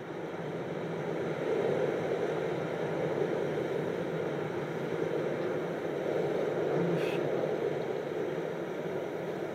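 Steady rushing noise that swells over the first second or two and then holds, with a faint short click about seven seconds in.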